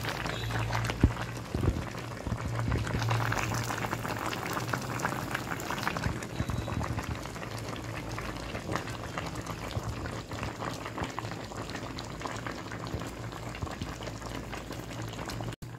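Pot of carp in spiced arsik broth simmering: continuous bubbling and popping of the broth.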